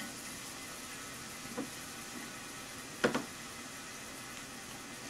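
Slices of beef sizzling steadily on a hot grill plate, with a brief sharp knock about three seconds in.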